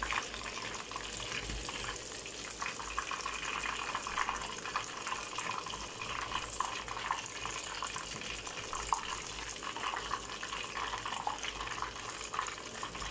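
Hot oil sizzling with a steady crackle as breaded chicken drumettes deep-fry in a small saucepan.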